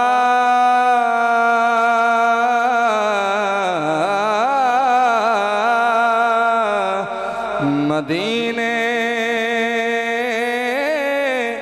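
A man's voice singing a devotional kalam (naat) in long, drawn-out notes that waver and bend. There is a short break about eight seconds in before the next held phrase.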